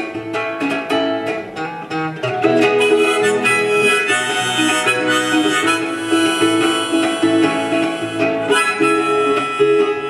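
Acoustic guitar strummed under a harmonica playing held melody notes in an instrumental break of a folk song.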